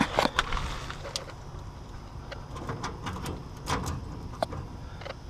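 Hand work on AC unit wiring: scattered small clicks and scrapes of wire and tools being handled, over a low steady background rumble.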